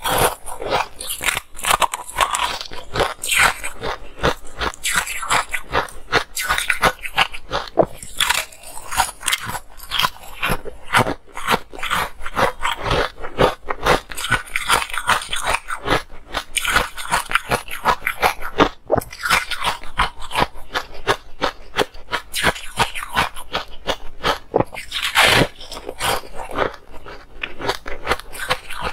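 Close-miked crunching and chewing of a frozen ice block, a dense run of crisp cracks and crackles with no pause.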